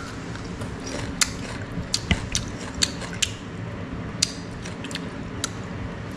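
Crisp, crunchy chewing of a bite of green ambarella (cóc) fruit close to the mic: about ten sharp, irregular crunches spread over several seconds.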